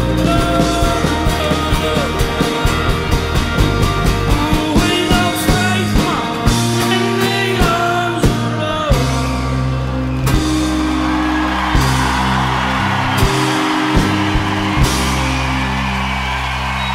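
A live rock band with a male lead voice singing over fast, driving drums. About nine seconds in the singing stops, and the band holds long sustained chords with only occasional drum hits as the song winds down.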